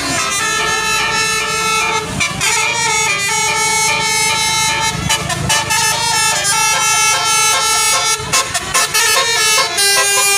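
Telolet (basuri) musical air horns on an Indonesian tour bus, playing a tune of held, loud notes that change pitch every second or so. A lower note comes in near the end.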